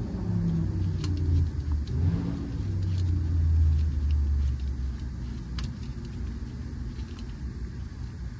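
A vehicle engine running nearby, a low rumble that rises and falls in pitch and eases off about halfway through, with a few faint clicks.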